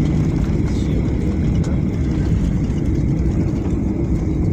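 Cabin noise of a Boeing 737 rolling along the runway just after touchdown: a steady, loud low rumble of the engines and landing gear on the tarmac as the jet slows, with a thin steady whine above it.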